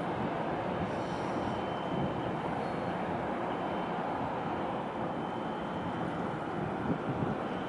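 Steady harbour din: a continuous mechanical roar with a faint, thin high whine running through it.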